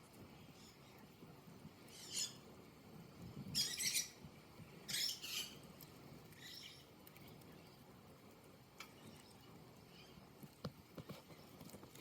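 Budgerigars giving a few short, high chirps, the loudest a little under four seconds in and again around five seconds, with a few faint clicks near the end.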